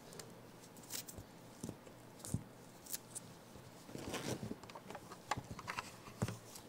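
Faint, scattered light taps and rustling of a baby capuchin monkey scrambling over a fleece blanket and climbing onto cushions, with a brief longer rustle a little past the middle.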